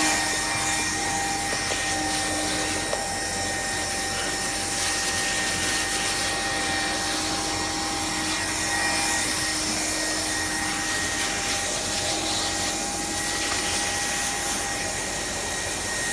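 Hand-held hot-air blower running steadily with a constant whine, heat-sealing a piece of repair material over a hole.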